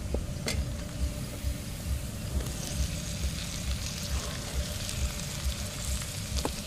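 Raw chicken pieces dropped into hot oil and fried masala in a steel wok, sizzling, the sizzle growing stronger a few seconds in as more pieces go in. A low pulsing rumble runs underneath, with a sharp click near the start and another near the end.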